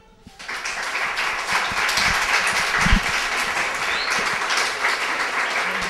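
Audience applauding, a dense steady clapping that starts about half a second in.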